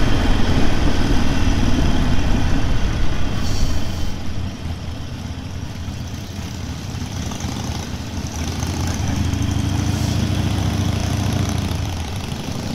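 Harley-Davidson Sportster V-twin engine running on the road, with wind and road noise. It pulls loud for the first few seconds, eases off about four seconds in, then picks up again a few seconds later.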